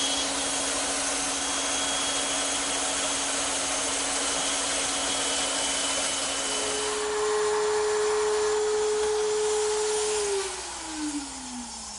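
Bandsaw running and cutting through half-inch wood stock for wedges. About seven seconds in, it gives way to a slightly louder, higher-pitched table-mounted router running a 1/4-inch roundover bit along a board's edges. Near the end the router is switched off and winds down in falling pitch.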